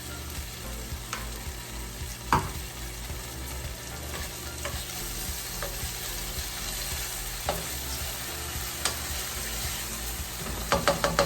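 Tomatoes and green onion sizzling in butter and olive oil in a frying pan while being stirred, with a utensil knocking on the pan now and then and a quick run of taps near the end.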